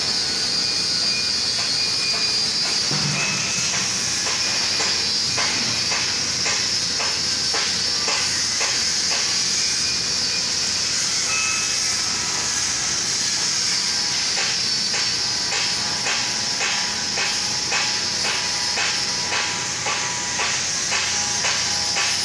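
Electric arc welding on a thick steel beam: a steady high hiss with a running crackle of sharp pops that come thick and fast from about five seconds in.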